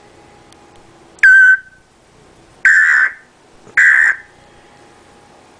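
Parrot giving three short, loud calls: first a whistle that drops in pitch and levels off, then two harsher squawks.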